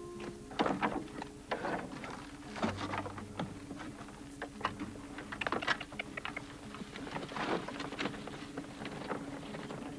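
Horse-drawn wooden spring wagon being boarded and setting off, with irregular knocks and clatters of wood, wheels and hooves, over faint steady low music.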